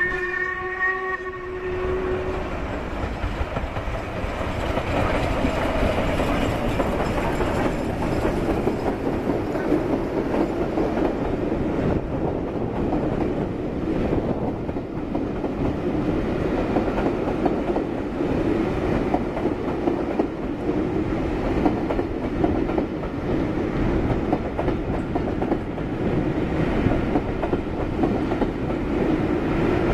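Steam-hauled passenger train passing: LMS Jubilee Class locomotive 45699 'Galatea' and its rake of coaches rolling by, a continuous steady rumble with wheel clatter over the rails. A steady pitched tone dies away about two seconds in.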